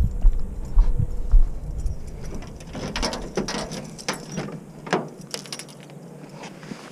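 Footsteps on pavement, then keys jangling and a run of sharp clicks and rattles at the driver's door of a Honda Civic EK coupe as it is unlocked and opened.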